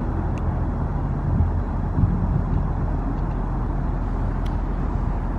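Steady low rumble of distant city traffic, without distinct events.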